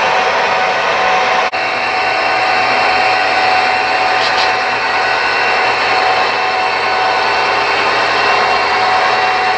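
HO scale model trains running on the layout: a steady whirring hum of locomotive motors and wheels on the rails, broken once by a brief dropout about a second and a half in.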